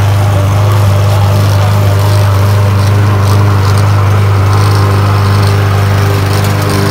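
Lawn mower engine running at a steady speed, a loud, even hum.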